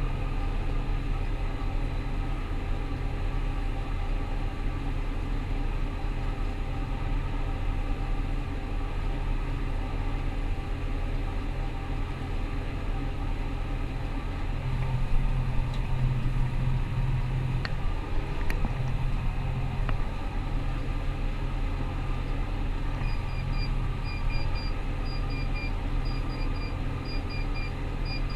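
Rostselmash Vector 425 combine harvester running steadily: an even engine drone with a strong low hum. Near the end a rapid series of short, high electronic beeps starts.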